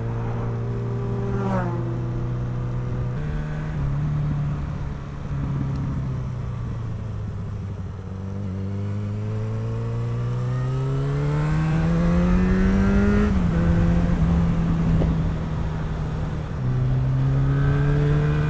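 Yamaha motorcycle engine heard from the bike while riding. It cruises, eases off about a third of the way in, then accelerates with a rising pitch until it drops suddenly about two-thirds through, as with an upshift, and cruises on. Wind rumble is on the microphone.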